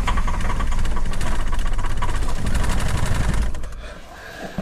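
Starter motor cranking a car engine with the throttle pressed, the engine turning over quickly and evenly but not catching; the cranking stops about three and a half seconds in. A hard start that the owner puts down to the cold air and high altitude.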